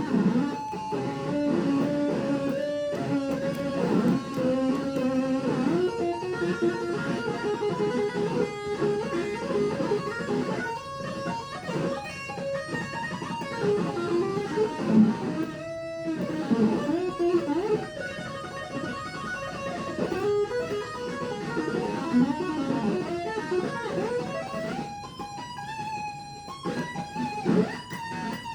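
Ibanez RG electric guitar played through a Zoom G3Xn multi-effects unit: a melodic lead line with bent notes.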